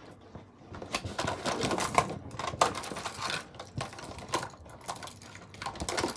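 Makeup items clicking and rattling as someone rummages through them by hand: irregular clicks and rustles, busiest in the middle.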